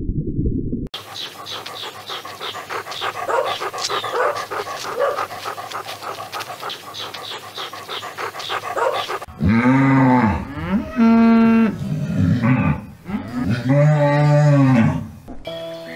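A dog pants rapidly for several seconds. Then a cow moos several times, long calls that rise and fall in pitch.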